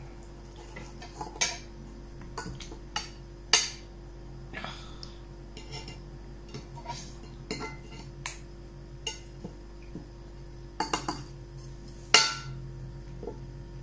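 Wooden chopsticks clicking and knocking against glass baking dishes while food is picked out, in scattered irregular taps with a louder knock about three and a half seconds in and another near the end. A faint steady low hum lies underneath.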